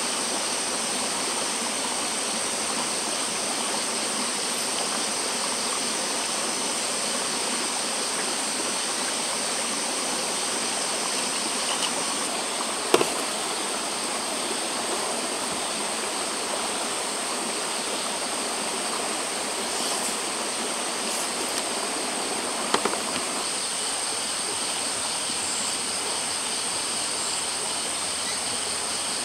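Stream flowing steadily, with a steady high-pitched drone of night insects over it. A sharp clink about 13 seconds in as the stainless-steel tumbler is set down on the metal camp table, and a smaller knock near 23 seconds.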